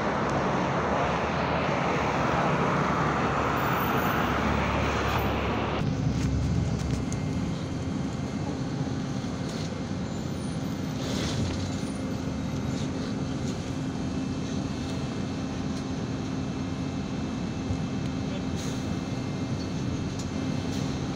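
Street traffic noise for about the first six seconds. Then it changes abruptly to the cabin sound of an Irisbus Citelis 12 m city bus under way: a steady engine drone with a low hum and road noise.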